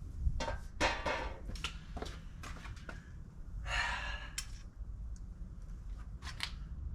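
Scattered light clicks and knocks of hand work on a breaker panel and its small metal parts, over a low steady hum. About four seconds in there is a single breathy rush.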